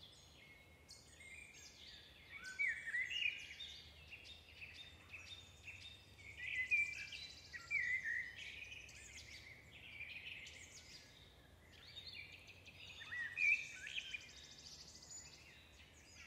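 Several birds chirping and whistling: many short rising and falling calls, overlapping, over a faint low background hum. The calls are busiest in the first half and again near the end.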